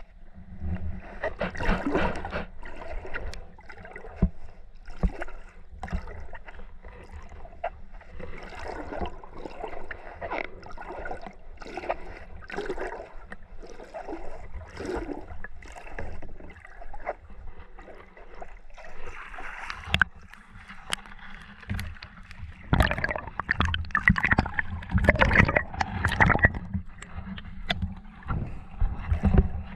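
Shallow water sloshing and gurgling around a camera held in or just under the surface, in uneven surges with occasional handling knocks. It gets louder for a few seconds in the last third.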